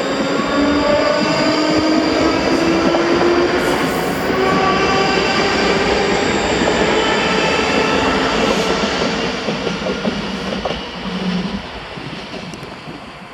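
ScotRail electric multiple-unit train pulling away, its traction motors whining in several tones that slowly rise in pitch over wheel and rail noise. The sound fades over the last few seconds.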